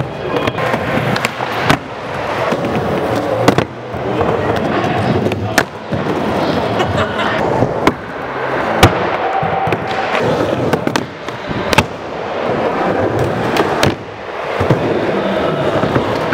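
Skateboards rolling over wooden and concrete ramps, with sharp clacks from tail pops, board slaps and landings. The sound breaks off and changes every two to three seconds as short clips follow one another.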